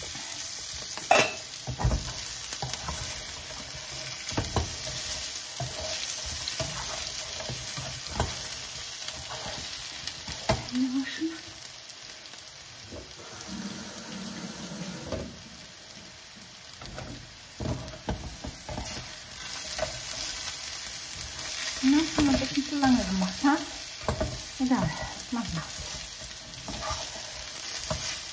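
Sliced potatoes sizzling steadily in hot fat in a frying pan, with a spatula now and then scraping and knocking against the pan as the potatoes are turned, most busily near the end.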